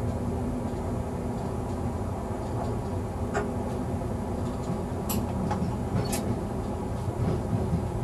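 Cab of a ČD class 854 diesel railcar on the move: a steady low rumble of engine and wheels on the rails. A few short sharp clicks cut through it about three, five and six seconds in.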